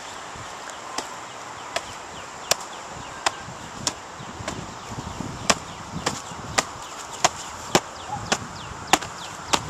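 Fists striking handheld padded strike shields: a steady series of sharp slaps, about one every two-thirds of a second.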